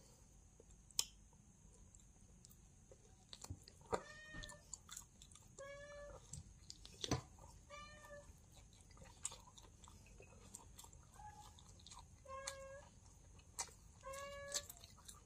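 A cat meowing: a series of short calls about every two seconds, starting about four seconds in. Under them are faint chewing sounds and a few sharp clicks.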